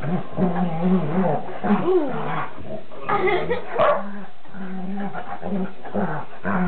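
A weimaraner and a Rhodesian ridgeback puppy play-fighting, growling in repeated low stretches. One dog gives a brief whine that rises and falls about two seconds in. There is a sharp knock just before the four-second mark.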